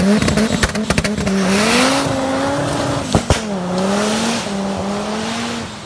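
Turbocharged Audi inline five-cylinder engine running hard in a Quattro competition car, its note rising and dipping as it revs, over a loud rushing noise, with scattered sharp cracks.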